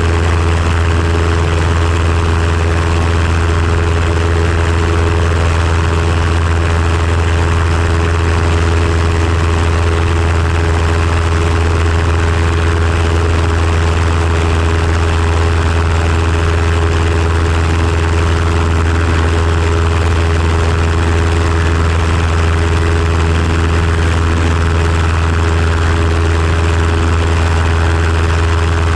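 RLU-1 Breezy's pusher engine and propeller running steadily in flight, a constant low drone with no change in power. Steady wind rush over the open airframe is mixed in.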